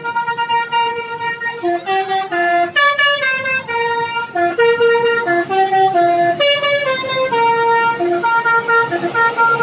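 Indonesian bus 'telolet basuri' musical horn playing a tune: a run of held horn notes stepping up and down in pitch, each lasting about a third to half a second.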